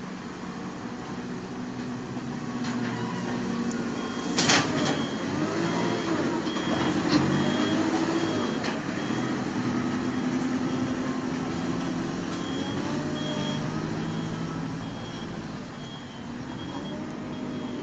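JCB backhoe loader's diesel engine running and revving as the machine works the dirt roadbed, with a sharp metal clank about four and a half seconds in. A reversing alarm beeps in runs of short, evenly spaced pips.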